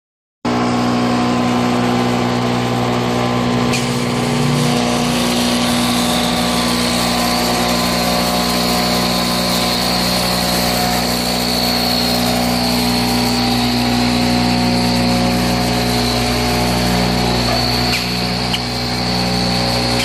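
Broom-handle rounding machine running, its rotary cutter heads shaving square wooden stock into round sticks: a steady motor hum with a high whine over a constant rush of cutting.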